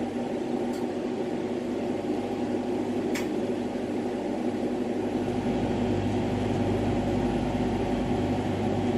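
Steady hum and rush of a running lampworking torch setup, with a faint click about three seconds in and a deeper rumble coming up about five seconds in.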